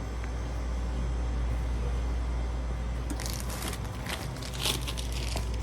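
Packaging or bags crinkling and rustling in short bursts from about three seconds in, over a steady low rumble.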